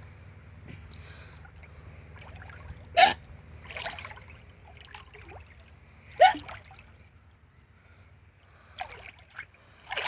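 A person hiccuping in a swimming pool: two loud, short hiccups about three seconds apart, each a quick upward squeak, with fainter ones near the end, over soft water trickle and lapping.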